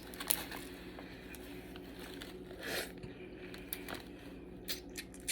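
Hands cracking and picking apart cooked blue crab shells while eating: scattered small sharp cracks and clicks, with a short noisy burst a little past halfway, over a faint steady hum.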